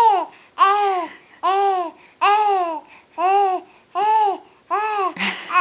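A young infant cooing a string of short "ah" sounds at an even pace, about one every 0.7 seconds, each rising and falling in pitch.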